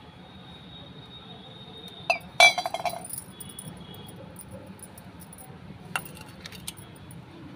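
Steel puja plate and small metal vessels clinking as they are handled, with a short ringing metal clatter about two seconds in, the loudest sound, and a few lighter clinks around six seconds in.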